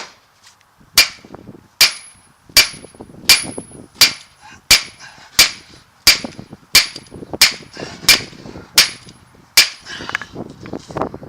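Hammer striking steel on a truck drive shaft's U-joint, about fourteen evenly paced blows, working the joint's bearing caps out of the yoke.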